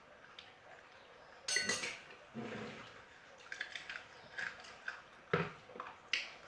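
Dishes and cutlery clinking during a meal: one ringing clink about one and a half seconds in, then scattered small clicks and taps, with a sharper knock near the end.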